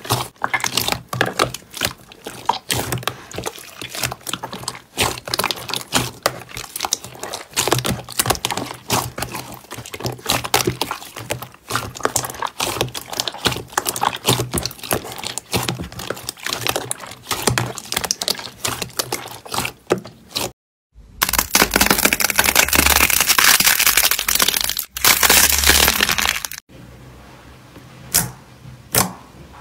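Glossy slime being squeezed and kneaded by hand, giving a dense, irregular run of wet pops and clicks as trapped air bursts. About two-thirds through, after a brief break, it turns into a louder, continuous crackling for several seconds, then drops to a few separate pops near the end.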